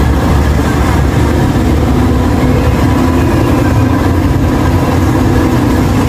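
Passenger train running close by: a steady diesel engine drone with a deep rumble and a constant hum, without break.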